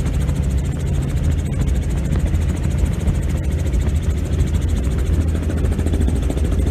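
Helicopter in flight: a steady, loud rotor and engine noise with a fast, even beat of blade pulses and a deep drone.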